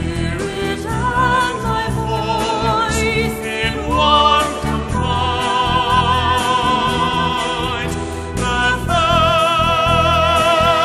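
A soprano singing high, wordless sustained notes with wide vibrato over an orchestra, sliding up to a higher note about four seconds in, in a musical-theatre cast recording.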